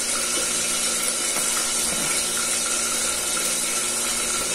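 Steady hiss of a pot of clear vegetable soup cooking on a lit gas stove.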